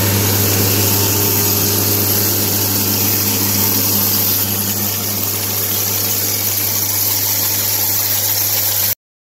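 Ride-on chain trencher's engine running at a steady speed, a constant deep hum. It cuts off suddenly near the end.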